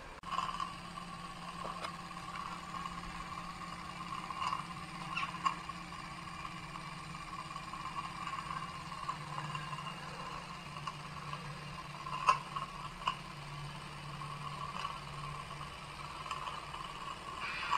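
Wilesco D430 live-steam model engine running steadily, with a few sharp clicks about twelve and thirteen seconds in.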